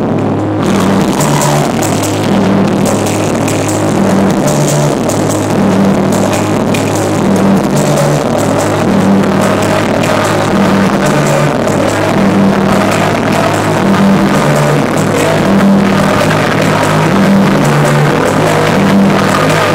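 Live rock band playing loudly: drum kit, guitar and keyboards over a repeating low bass line.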